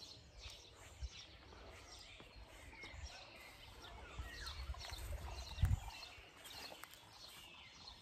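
Nightingales singing: many short, quick chirps and trills overlapping throughout, over a low rumble. A dull thump about five and a half seconds in is the loudest sound.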